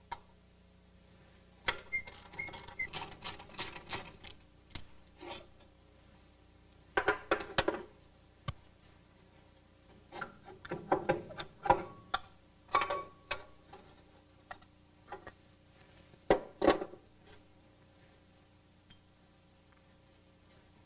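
Socket wrench working the brake caliper bolts and the steel caliper being worked off its mounting: bursts of rapid clicking and metal-on-metal clinks in several separate spells, with a brief squeak about two seconds in.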